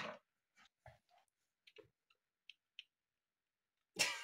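A quiet room with a few faint, scattered clicks and tiny high squeaks, then a short breathy burst about four seconds in.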